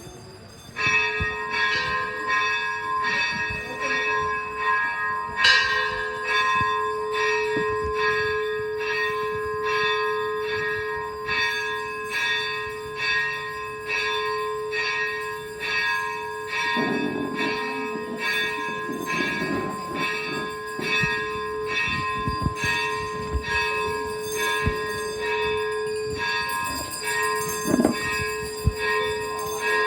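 Bells ringing continuously, struck over and over about twice a second, with several pitches sounding together.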